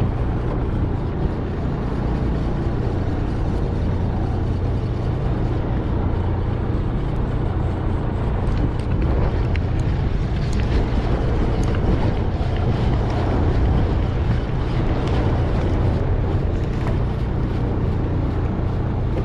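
Fishing boat's engine running steadily, a constant low drone with an even hiss of wind and water over it.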